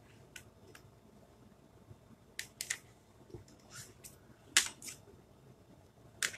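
Faint, scattered short scratchy swipes and light clicks, about eight in all, of fingers wiping excess chalk paste off a transfer on a craft board.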